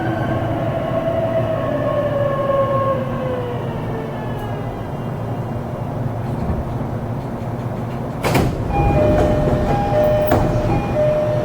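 E233-series electric train's motor whine falling in pitch as it brakes to a stop. About eight seconds in there is a sudden rush as the sliding doors open, followed by a short repeating electronic door chime.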